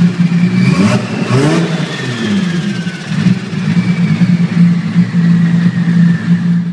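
Nissan Skyline R34's tuned turbocharged straight-six idling with a lumpy, choppy note, blipped briefly to higher revs around one to two seconds in and settling back, with a faint high falling whistle over it.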